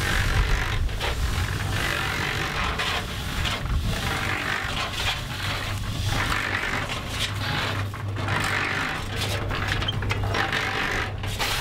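Cement mixer converted into a sand sieve, running with its drum turning as dry river sand sifts through and pours into a bin below: a steady low hum under a hiss of sand that swells and fades.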